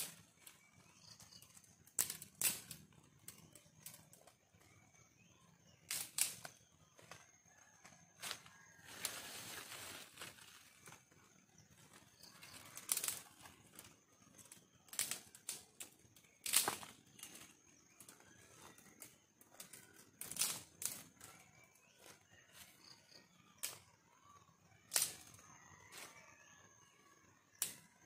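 Dry sticks being snapped and broken by hand: sharp cracks at irregular intervals, one every second or two, with a stretch of rustling and scraping about nine seconds in.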